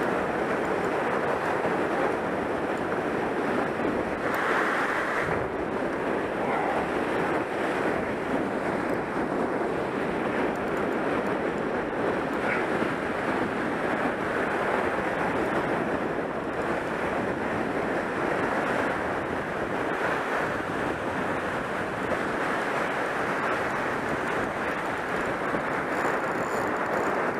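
Small surf waves washing onto a sandy beach, mixed with steady wind buffeting the microphone.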